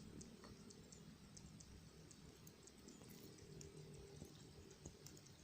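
Near silence: faint background with scattered faint ticks.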